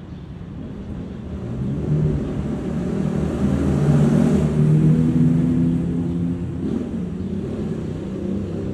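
Subway train running on the elevated tracks: a rumble with a low motor hum that builds over the first few seconds, peaks near the middle and then eases slightly.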